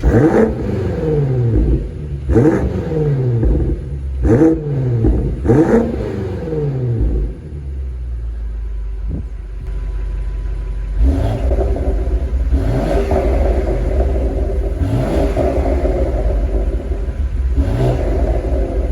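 BMW M SUV's twin-turbo engine being revved while stationary. Four quick, sharp revs come in the first six seconds, each climbing and dropping straight back. It then settles to a low idle, and from about eleven seconds runs fuller with four shorter, softer blips.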